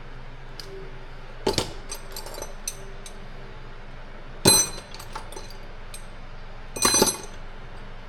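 Metal tools clinking and clattering as a toolbox is rummaged through for an 8 mm socket, with three louder ringing clanks about one and a half, four and a half and seven seconds in and lighter clicks between them.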